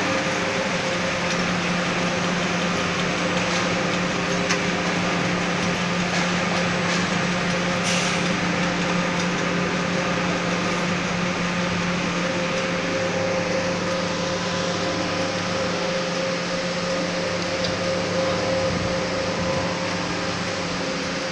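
Carton paper grooving machine running steadily: a constant mechanical hum with a couple of held tones, and a few brief clicks scattered through it.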